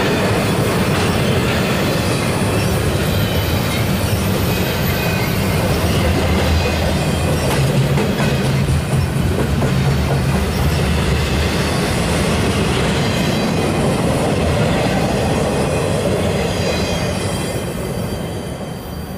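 Double-stack intermodal container well cars rolling past on the rails: a steady rumble of steel wheels with faint high wheel squeal, fading away near the end as the last cars go by.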